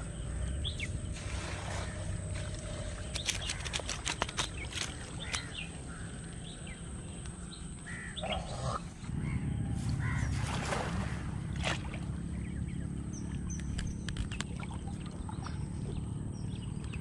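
Shallow water sloshing around wading legs while a cast net is handled, with scattered sharp clicks and a few short bird chirps.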